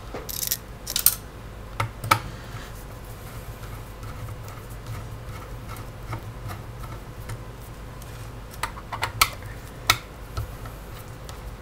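Small screwdriver turning out hard-drive mounting screws from a metal drive bracket: light metallic clicks and scrapes, a few in the first couple of seconds and another cluster near the end, over a steady low hum.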